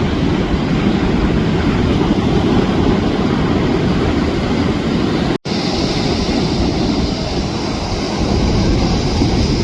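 Steady loud rumble of wind on the microphone mixed with the wash of ocean surf; the sound drops out completely for an instant about five seconds in.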